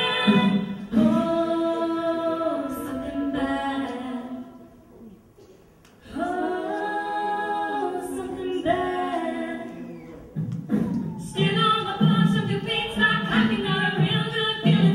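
Mixed-voice a cappella group singing amplified through stage microphones. Held multi-part chords break off to near silence about halfway, and another chord follows. Near the end a rhythmic, pulsing section comes in with vocal percussion.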